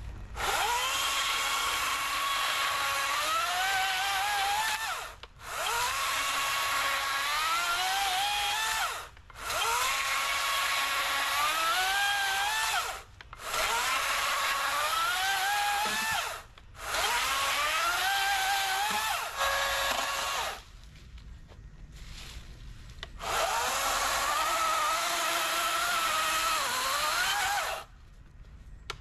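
Wild Badger Power 40V brushless cordless chainsaw with a 14-inch bar cutting through logs, a steady electric motor whine over chain noise. It runs in about six separate cuts of a few seconds each, its pitch climbing in steps during each cut, and stops abruptly between them.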